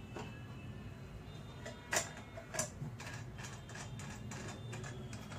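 A few scattered clicks and light knocks of a stainless-steel mixer-grinder jar being handled and set on its base, the sharpest knock about two seconds in; the grinder motor is not running.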